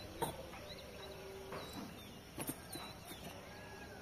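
Faint outdoor background with short, high chirps here and there and a few sharp clicks, the loudest just after the start.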